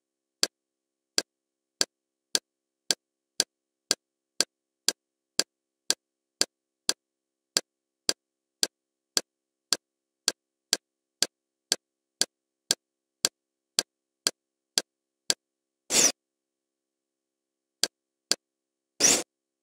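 Kodi menu navigation sound effects: a short, sharp tick each time the selection moves one tile, about two a second. About 16 s in, and again near the end, come longer, louder interface sounds.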